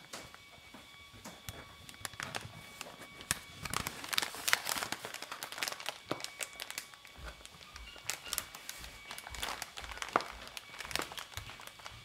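Paper and plastic shipping mailers crinkling and rustling as they are handled. The crackles come in irregular bursts, thickest about four seconds in and again between eight and eleven seconds.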